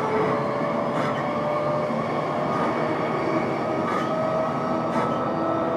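Cabin running sound of an E233 series electric train motor car: steady tones from the VVVF inverter and traction motors over rolling wheel and rail noise, with a few brief clacks over rail joints.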